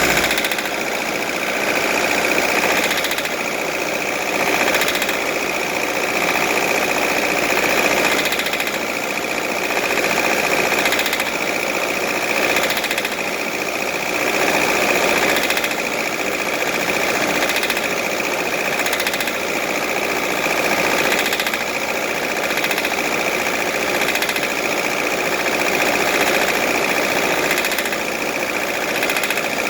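D24 diesel engine running with an irregular knock, the engine knocking erratically. The loudness swells and eases every couple of seconds.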